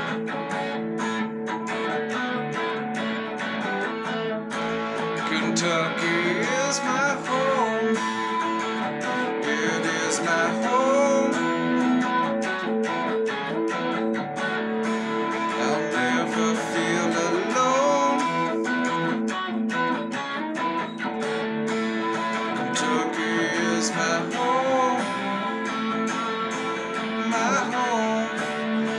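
Electric guitar playing: strummed chords with picked notes, several of them bent so they slide up and down in pitch.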